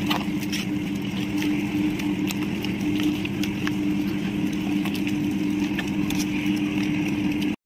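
Hands squishing chicken pieces through a thick yogurt-and-spice marinade in a steel bowl, giving soft wet clicks, over a steady low motor-like hum that cuts off suddenly near the end.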